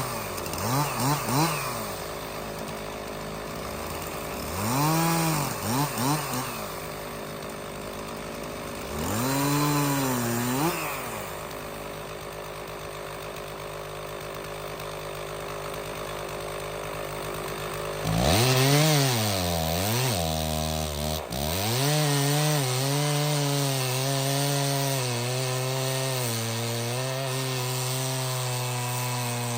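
Stihl 066 two-stroke chainsaw revved up and down a few times, then held at high revs in the cut through the red oak for the last third, its pitch sagging and recovering under load.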